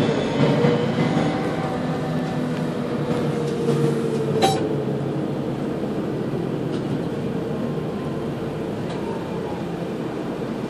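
Rear of a Mercedes-Benz Citaro L three-axle city bus making odd noises while running: a steady rumble with a held whine that slowly drifts a little lower in pitch, and a single sharp click about four and a half seconds in.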